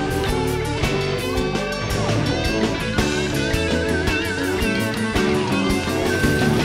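Live blues band playing: electric guitar lead with wavering, vibrato-bent high notes over bass, keyboard and a steady drum beat.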